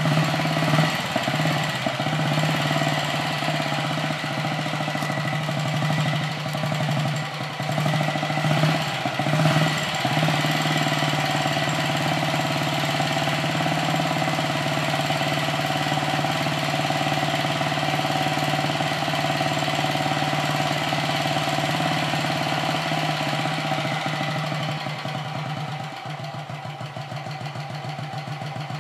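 1951 Vincent Comet's 500cc single-cylinder engine idling, with a few brief rises in the first ten seconds, then running steadily. It gets a little quieter near the end.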